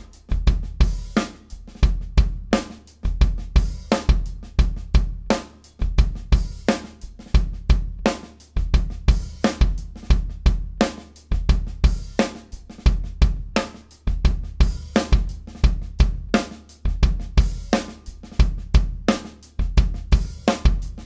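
Drum kit groove led by a 24x14-inch kick drum with clear single-ply Ambassador heads on both sides, muffled by a rolled towel taped against the batter head and a paper handkerchief on the ported reso head, giving a clear attack and a very fat low end. Snare, hi-hat and cymbal play over the repeated kick hits.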